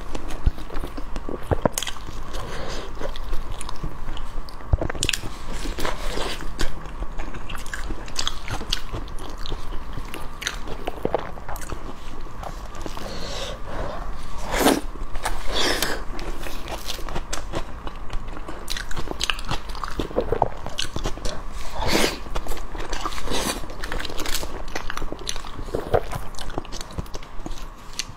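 Close-miked biting and chewing of sauced pig skin: irregular clicks, crunches and wet mouth sounds as it is bitten off and chewed.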